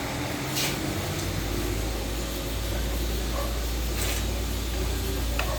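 A steady low hum, with a few brief scrapes and a small click near the end as screws are worked out of a scooter's air filter cover with a screwdriver.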